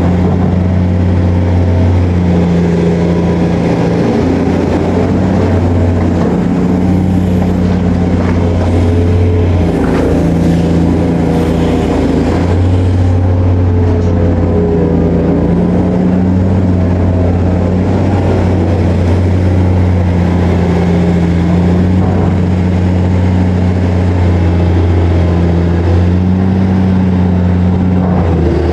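Excavator's diesel engine running steadily under load, a deep drone whose pitch shifts slightly every few seconds as the machine works.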